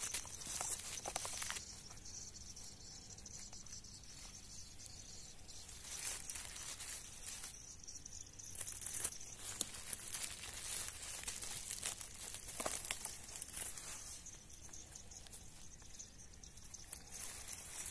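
Irregular rustling and crackling of leaf litter and undergrowth, over a steady high insect chirring.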